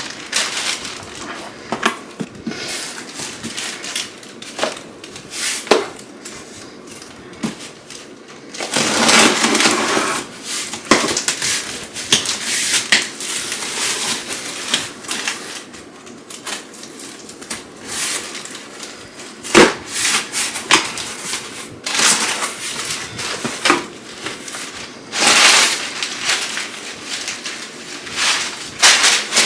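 Packaging being handled and opened: crinkling, crackling plastic and cardboard with scattered sharp clicks and taps, and longer stretches of rustling about 9 and 25 seconds in.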